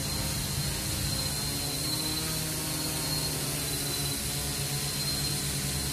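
Quadcopter with Emax 2216 motors and 12-inch propellers hovering: a steady hum of the four motors and props.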